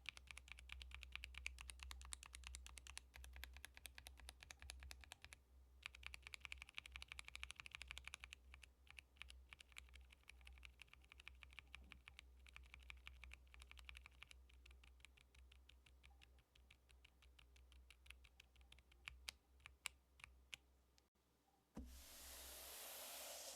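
Mechanical keyboard with stock Akko Bittersweet tactile switches, a PP plate and PBT keycaps, typed on quickly in a steady stream of soft clacks. There is a brief pause a little after five seconds, and the typing thins out in the second half. A short burst of hiss comes near the end.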